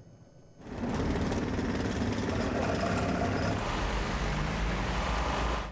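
Street traffic: cars driving slowly past, a steady mix of engine and tyre noise that starts about half a second in.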